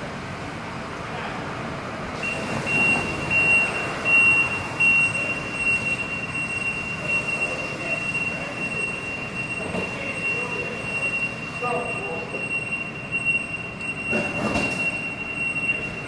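Hissing rush of a firefighter's hose spraying a burning ambulance. A steady high-pitched tone comes in about two seconds in and holds.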